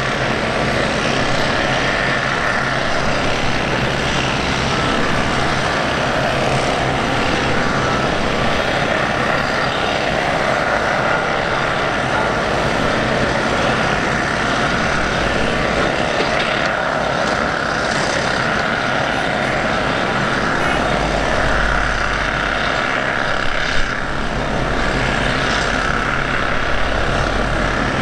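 Jet aircraft engines running, a steady rushing noise with a faint whine in it.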